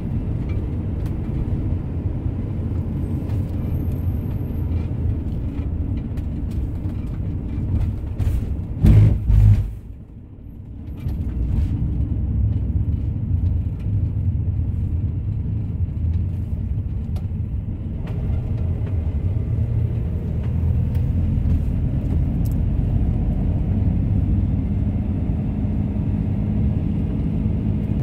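Camper van driving on the road, heard from inside the cab: a steady low rumble of engine and tyres, with a couple of loud knocks about nine seconds in.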